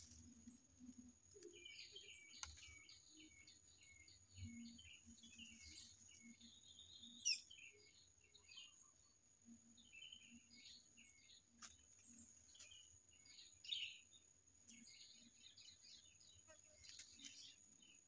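Faint, busy chirping of small wild birds, a string of short high calls with a few louder ones about seven and fourteen seconds in, over a steady thin high-pitched whine.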